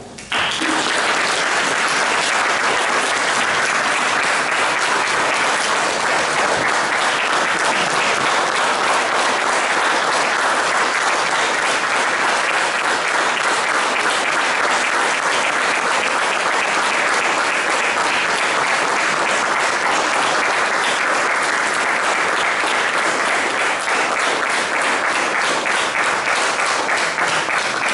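Audience applauding, steady and sustained, starting abruptly right after the speech ends.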